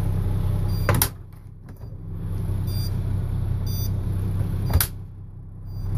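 Steady low mechanical hum with two sharp clicks about four seconds apart as the RV refrigerator door is opened and handled.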